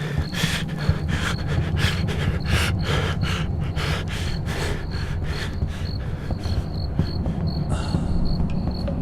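A person panting hard and out of breath, the quick breaths slowing and fading out about six and a half seconds in. Crickets chirp steadily over a low steady rumble.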